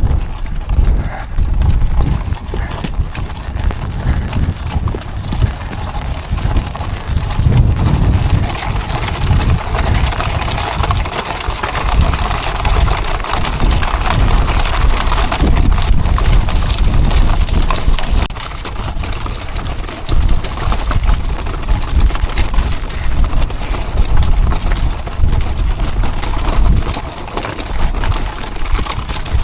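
Loaded hand-pulled cart rattling over a rough moorland track, with footsteps crunching in an uneven beat. Gusting wind buffets the microphone with a heavy low rumble throughout.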